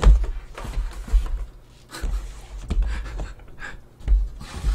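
Cardboard snack boxes handled on a desk: dull thumps and knocks as small boxes are pulled out of a large carton and set down, with rustling cardboard.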